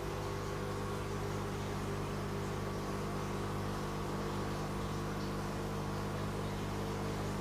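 Aquarium equipment running steadily: a low electrical hum with a hiss of air bubbles and water trickling from the overhead filter.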